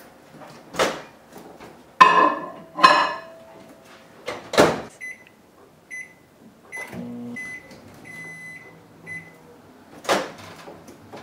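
Microwave oven being loaded and started: a few knocks and a loud clunk as the dish goes in and the door shuts, a run of short keypad beeps, then a low steady hum as the oven runs, softening cream cheese.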